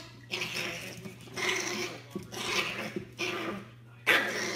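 A small fluffy white dog making a series of short, hissy sounds, about one a second, over a steady low hum.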